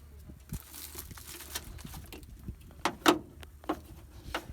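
Scattered clicks and light knocks from hands handling the installation parts and cables, the loudest about three seconds in, over a faint low steady hum.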